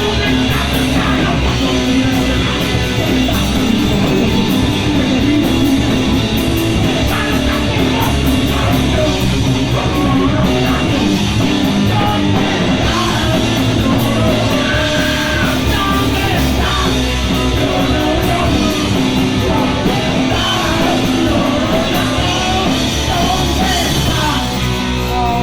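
Punk rock band playing live: loud guitar-driven rock with singing, steady and full throughout.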